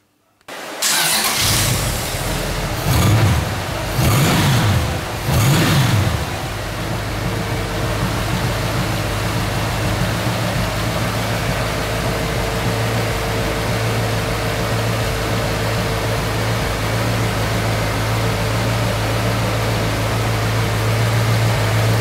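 A 1959 Simca Vedette 2.4-litre side-valve V8 in a custom motorbike starts up after a brief crank, is blipped three times, then settles into a steady idle.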